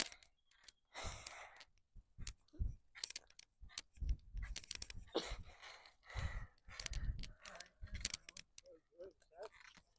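Irregular rustling bursts and sharp clicks of a bicycle ride: wind buffeting the microphone and the bike rattling over the road.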